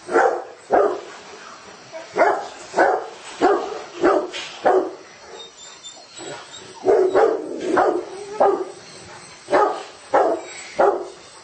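A dog barking repeatedly: about a dozen short barks in uneven runs, with a pause of about two seconds midway.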